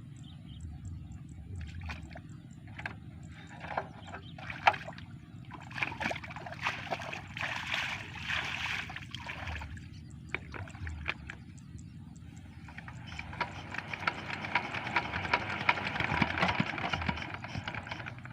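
Single-cylinder diesel engine of a rice-field hand tractor running steadily, with two longer stretches of louder, clicking noise over it.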